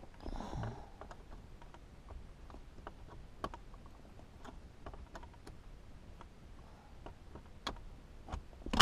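Scattered, irregular small clicks and ticks of a flathead screwdriver prying at the plastic retaining clips of a Mercedes W126 climate control unit in the dashboard.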